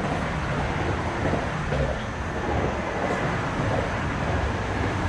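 Steady low rumble and hiss of road traffic passing over the concrete bridge overhead.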